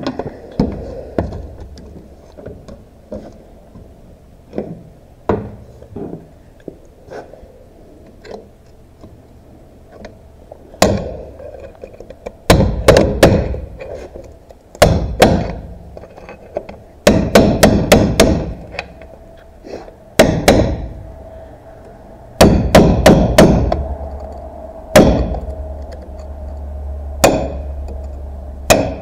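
Hammer blows on a punch driven against the shift mechanism of a tractor transmission shifter cover clamped in a vise: sharp strikes, singly and in quick runs of three to five, starting about a third of the way in, after lighter taps and tool clatter.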